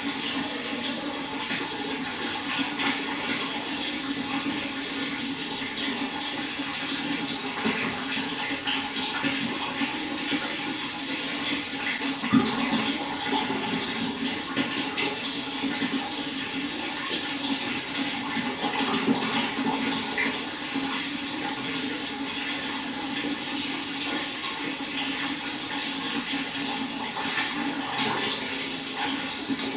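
Running water flowing and splashing steadily, with small irregular splashes.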